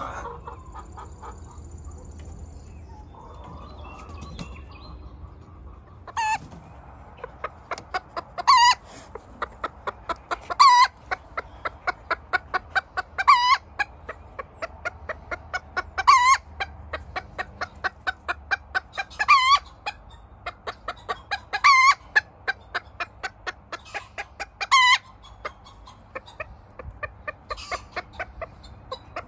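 Hen cackling the egg song: a run of quick clucks, with a loud, drawn-out squawk every two to three seconds. It starts about six seconds in. This cackle is the call hens give around laying an egg.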